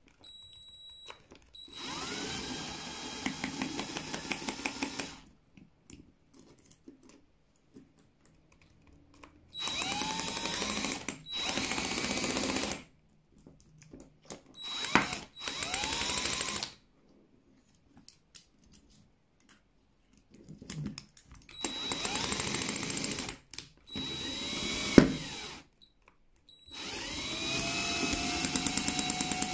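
Parkside 20 V cordless drill driving a rivet adapter, run in repeated short bursts of one to three seconds. Each burst starts with a rising whine as the motor spins up, and one sharp click comes about 25 seconds in. The adapter is failing to set the rivet; the sound is taken as a sign that it won't work.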